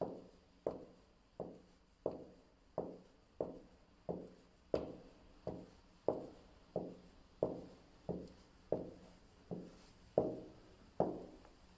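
Footsteps walking at a steady pace, about one and a half steps a second, each step ringing briefly in a hallway.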